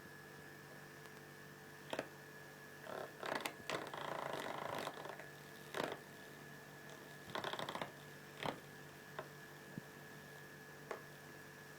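Electric fan humming steadily. Over it come a scattering of sharp clicks and a few short scuffling, rustling noises, busiest in the first half.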